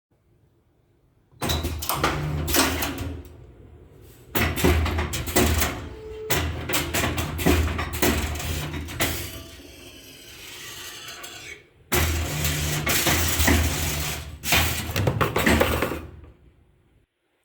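CNC wire-bending machine at work, feeding and bending wire: a low motor hum under rapid sharp metallic clacks, coming in several runs with short pauses between.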